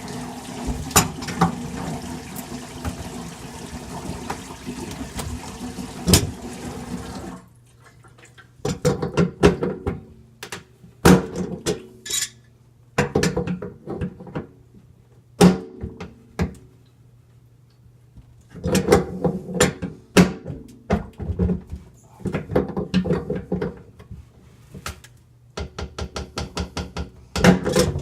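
Water running from the faucet into a kitchen sink for a sound-test of a leaking sink strainer, shut off suddenly about seven seconds in; then irregular bursts of knocking and rattling.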